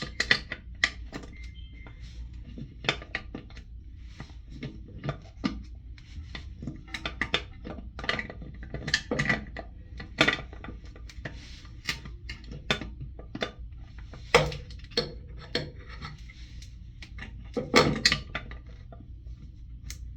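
Irregular clicks and knocks of hard plastic and porcelain toilet-tank parts being handled as a fitting is tightened by hand, with a few louder knocks about 10, 14 and 18 seconds in.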